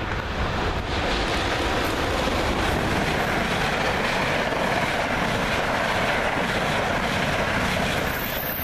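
New Jersey Transit train of single-level passenger coaches passing at speed: a steady rush of wheels on rail, strongest mid-way and easing off near the end as the last car goes by.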